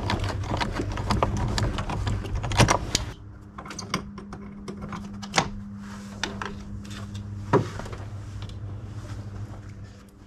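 Hand tools clicking and clinking on metal as the battery cable terminals are loosened and disconnected: a string of irregular sharp clicks and knocks over a low steady hum.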